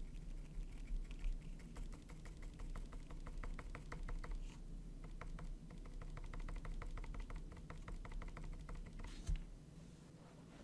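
Small paintbrush dabbing paint onto a tiny canvas: rapid light taps, several a second, as the bristles stipple on foliage. A short louder scuff comes near the end.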